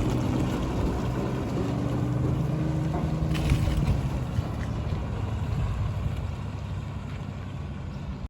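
Large diesel engine running steadily with wind noise on the microphone, easing somewhat quieter near the end.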